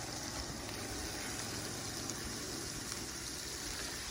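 A pan of Hamburger Helper cooking, with a steady sizzle and bubble.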